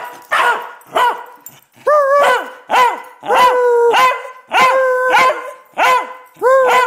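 Corgi giving a rapid string of short, howling barks, about two a second, each holding one steady pitch before dropping off: a happy, excited dog.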